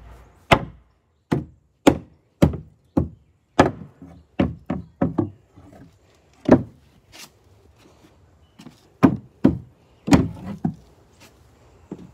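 Hammer blows on a new pine stair tread, a string of sharp wooden knocks about two a second with a couple of short pauses, as the board is knocked into place on the step.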